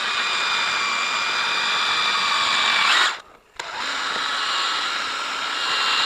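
Power drill spinning a buffing wheel, a steady whir with a high whine, polishing lens-clarifying compound into a scratched plastic taillight lens. It stops a little after three seconds and starts again about half a second later.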